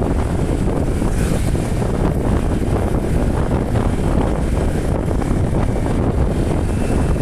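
Steady wind rush on the microphone of a moving motorcycle, with the bike's running and road noise blended in underneath.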